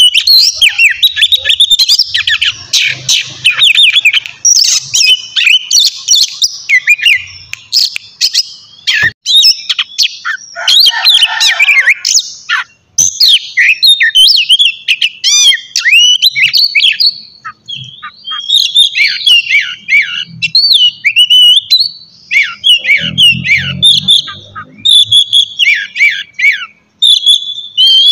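Oriental magpie-robin singing continuously: a fast, varied stream of loud chirps, trills and whistled phrases with no pauses, the persistent full song that keepers call gacor.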